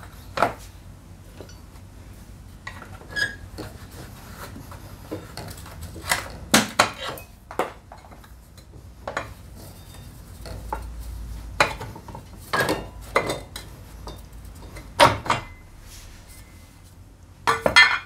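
Irregular metal clinks and knocks of bolts, tools and a metal bracket being handled and set down on a concrete floor while a scooter's rear wheel assembly is taken apart. A few strikes are sharper and louder.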